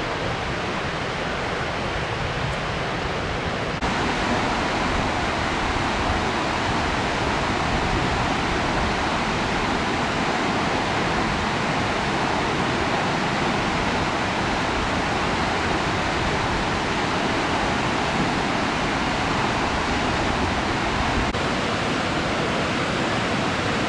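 Steady loud rushing of falling water, a waterfall or cascade. It gets a little louder about four seconds in.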